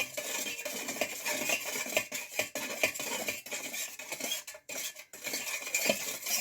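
A spoon stirring a milk, sugar and yeast mixture in a bowl, with quick, irregular clinks and scrapes against the bowl.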